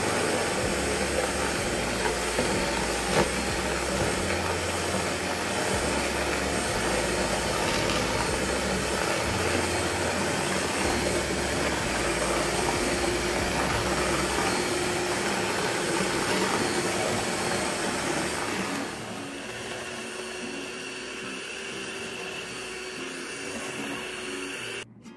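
Electric hand mixer running, its beaters whisking eggs and sugar in a plastic bowl to turn the mixture pale. The whirr drops to a lower level about nineteen seconds in and stops just before the end.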